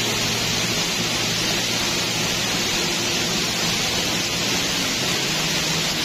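Steady rush of a waterfall about 25 m high: an even, loud hiss of falling water with no breaks.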